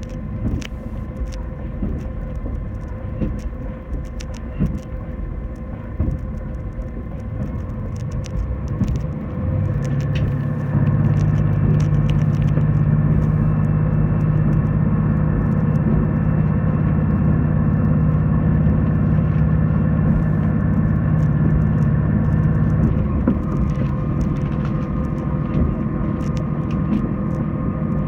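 Diesel railcar running, heard from inside the cabin: a steady rumble of engine and wheels on rail, with scattered sharp clicks. About ten seconds in the engine hum grows louder and steadier as it pulls harder, and it eases back about five seconds before the end.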